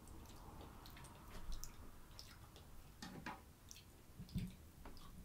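Faint close-up eating sounds: a metal fork clicking and scraping against a bowl, with soft wet squishy sounds of food being picked up, and a low knock near the end.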